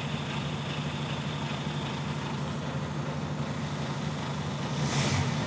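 Iveco S-Way truck's diesel engine idling steadily, with a short faint hiss near the end.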